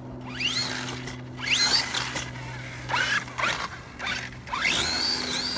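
Brushless electric motor of a 6S 1/8-scale RC monster truck whining up in pitch with each quick throttle burst, about five rising whines, the last held at a steady high pitch near the end.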